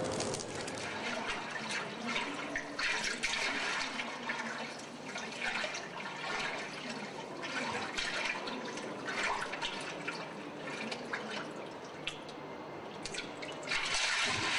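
Water sloshing and splashing in irregular surges, a foley water effect being performed live.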